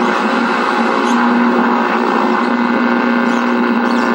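Packard Bell MQ625 tube television's speaker giving a steady loud buzz with hiss under the broadcast sound.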